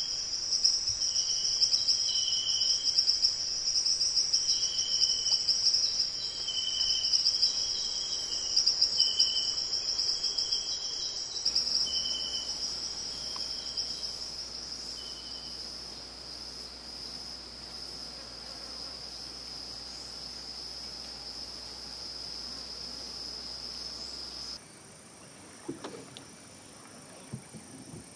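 Rainforest insect chorus: a steady, high, finely pulsing buzz, with short repeated high calls over it for the first half. About three-quarters of the way through it cuts off abruptly to a quieter background with a few soft knocks.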